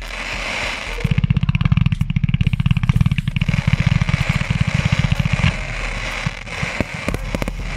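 Consumer fireworks battery firing a rapid volley: a fast, dense run of shots over a steady hiss. It starts about a second in and stops after about five seconds, then scattered sharp cracks follow near the end.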